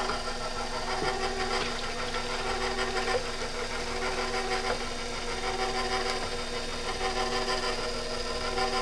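KitchenAid 600 Series stand mixer's motor running steadily on its lowest speed, a constant whine with a low hum, turning the dasher of the ice cream bowl attachment as it begins to churn.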